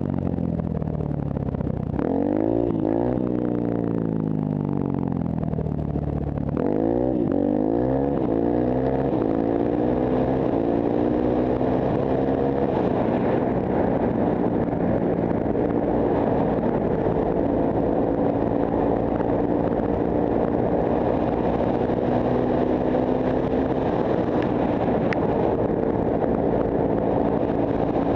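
Honda CRF150F's single-cylinder four-stroke engine accelerating through the gears: its pitch climbs and drops sharply several times in the first seven seconds, then settles into a steady drone at cruising speed. Wind rushes over the head-mounted camera's microphone throughout.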